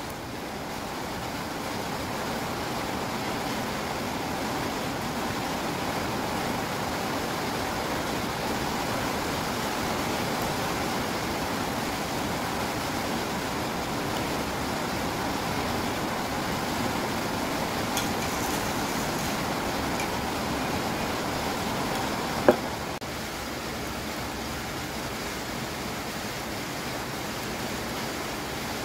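Steady hiss of falling rain. A single sharp knock about three quarters of the way through is the loudest sound.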